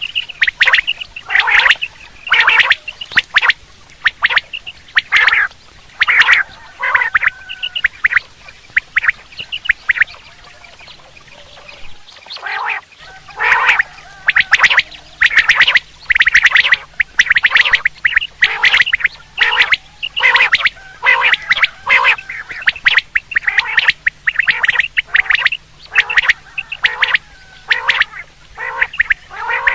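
Quail calls repeated rapidly in quick runs, many of them falling in pitch, with a short lull partway through. This is a recorded quail call used to draw birds in for hunting.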